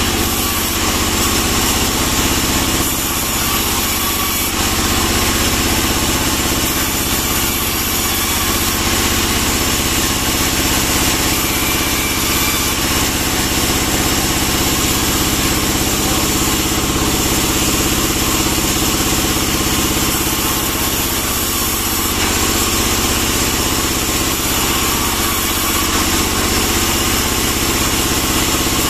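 Sawmill band saw and its drive machinery running steadily while pine slabs are fed through the blade to be cut into boards.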